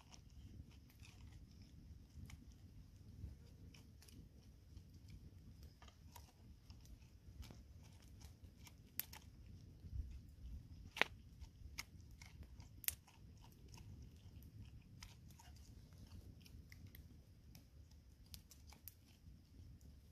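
Quiet crunching and scraping of a spoon and knife digging the juicy flesh out of a pineapple, with scattered sharp clicks, the loudest about 11 s in.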